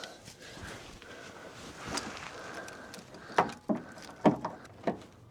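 Metal tools clinking and knocking, with a handful of sharp knocks that grow louder in the second half.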